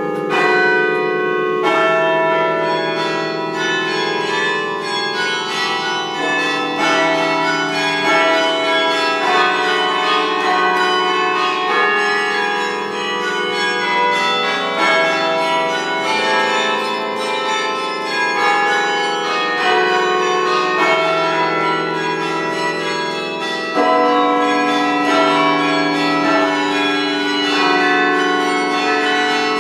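Duke Chapel carillon bells played from the baton keyboard: a steady stream of struck bell notes in melody and chords, each ringing on under the next. A louder chord comes about three-quarters of the way through.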